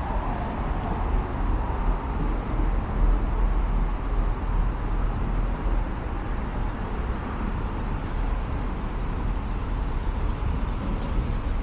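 Steady city traffic noise from vehicles on the elevated highway overhead and the street below, a constant low rumble with no single vehicle standing out.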